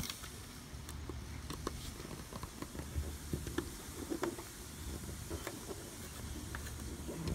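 Small screwdriver turning screws into the base of an aluminium Raspberry Pi case: faint, scattered clicks and scrapes of metal on metal over a low steady rumble. The screws are going in with difficulty.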